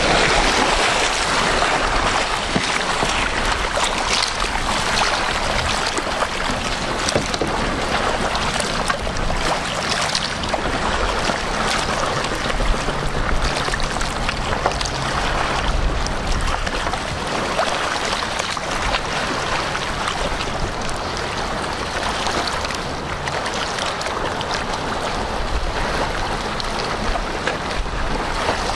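Sea kayak paddle strokes splashing through choppy lake water, over a steady wash of water and wind noise.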